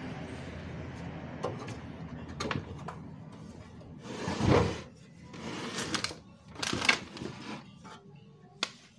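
Hands handling a metal cup sealer and its film-roll rods: scattered clicks and knocks, with three short scraping rustles in the middle, the loudest about four and a half seconds in.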